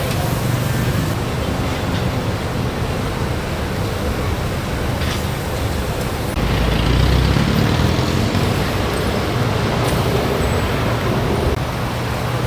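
Steady road traffic noise from a busy city road, with a heavier vehicle passing louder a little past the middle.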